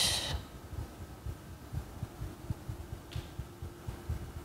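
A woman breathing out hard through her mouth, then low, irregular thuds and rumble of body movement on a yoga mat as she lowers from kneeling back onto her heels, with a faint short breath about three seconds in.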